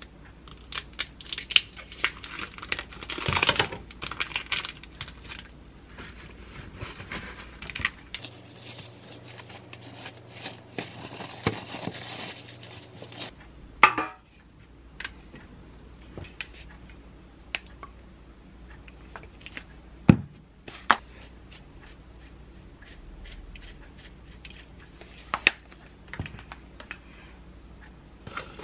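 Kitchen scissors snipping and plastic food packaging crinkling and tearing as it is cut open and peeled from raw beef. Scattered light clicks and knocks follow, with single sharper knocks about 14 and 20 seconds in, as the meat is handled on a stainless steel tray.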